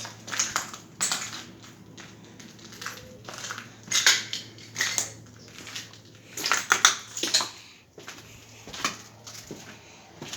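Footsteps crunching over debris and grit underfoot, irregular steps with several louder crunches.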